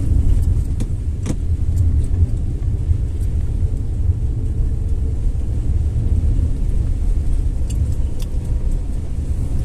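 Steady low rumble of a moving road vehicle, its engine and road noise heard from on board, with a few light ticks and knocks, the clearest about a second in.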